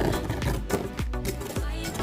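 Background music with a steady beat and strong bass, in an Afrobeat style.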